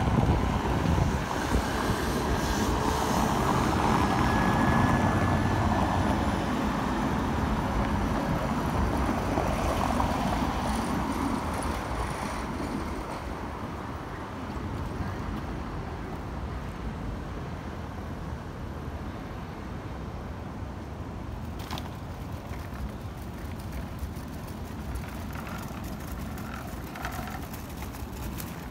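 City street traffic: motor vehicles passing on a cobbled street, louder for the first dozen seconds, then settling to a quieter steady traffic hum.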